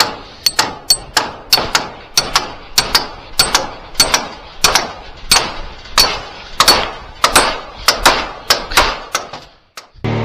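A hammer striking in a steady rhythm, mostly in quick double blows about every half second, each blow with a light metallic ring. The hammering stops near the end and music starts.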